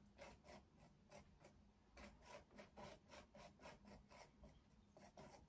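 Faint, quick strokes of a metal palette knife dabbing and scraping acrylic paint across a painting, about three short scrapes a second.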